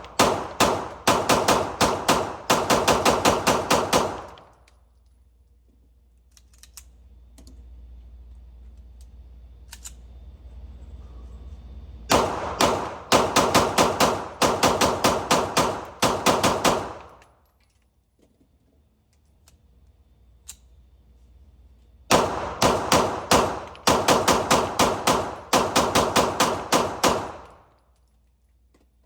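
Fusion Firearms XP Pro pistol fired in three fast strings of shots, each lasting about four to five seconds, with pauses between strings that hold a few faint clicks.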